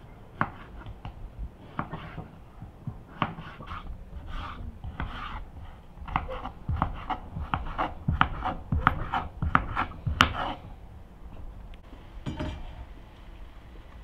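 Serrated kitchen knife slicing and dicing a raw potato on a wooden cutting board: a run of short sharp knocks as the blade goes through and hits the board, coming quicker, about two a second, in the middle, then thinning out near the end.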